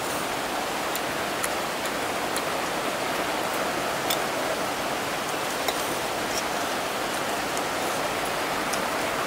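Steady rain that isn't letting up: an even hiss with scattered faint ticks of single drops.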